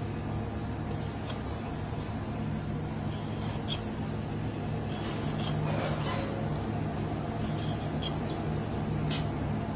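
Steady low hum of kitchen ventilation, with a few short sharp clicks from a hand air pump being worked to inflate a monkfish.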